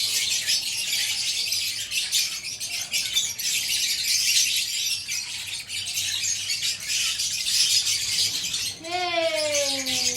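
Dense, continuous chattering of a flock of small parrots, lovebirds and parakeets, full of fine clicks and chirps. Near the end, one drawn-out call slides slowly downward for over a second.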